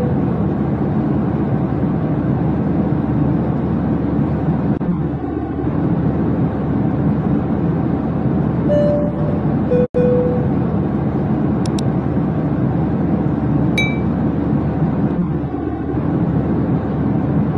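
Steady airliner cabin noise: a constant rush of engines and airflow. Just before halfway a two-note high-low cabin chime sounds, the sound drops out for an instant, and a few light clinks follow.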